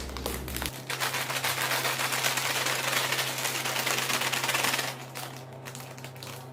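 A closed plastic chip packet shaken hard with chips and chilli powder inside, the crinkly bag and the chips rattling rapidly for about four seconds, then quieter crinkling as it is handled.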